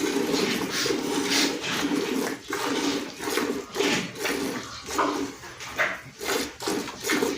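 A cow being milked by hand: milk squirts into a bucket in short, rhythmic streams, about two strokes a second.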